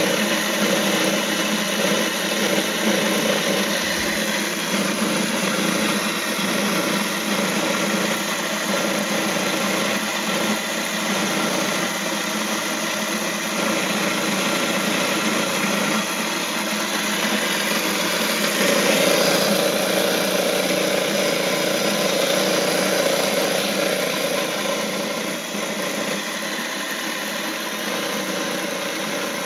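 A 3000-watt Vevor electric grain mill running steadily while it grinds dried deer corn into coarse chicken feed. Its tone shifts slightly about two-thirds of the way through.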